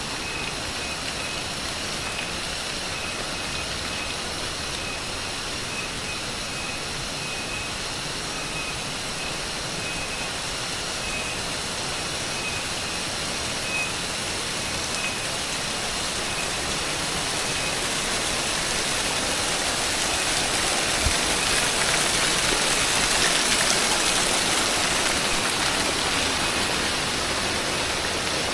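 Steady rush of falling water from a jungle waterfall, growing louder in the second half. A high insect call pulses about twice a second through the first half.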